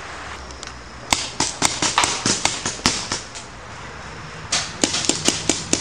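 Paintball markers firing in two rapid bursts of sharp pops, about five shots a second, the first starting about a second in and the second near the end.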